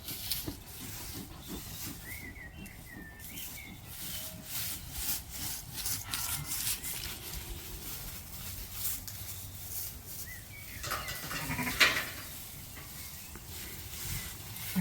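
Zwartbles sheep calling, with one louder bleat about eleven seconds in, over intermittent rustling and scraping.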